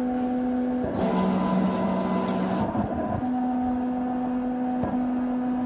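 Logo outro sound effect: a steady low synthesized drone, with a hissing whoosh from about one second in to nearly three seconds in.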